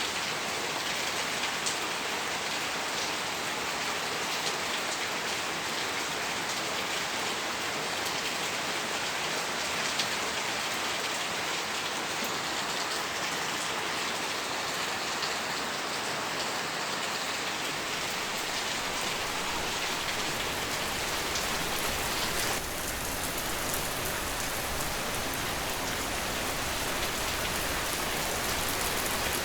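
Steady, continuous rain falling, a dense hiss dotted with the patter of individual drops. About two-thirds of the way through, a deeper, fuller low rumble joins in.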